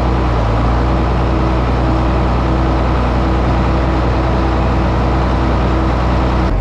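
Farm tractor engine running steadily at a constant speed, heard close up. It changes abruptly just before the end.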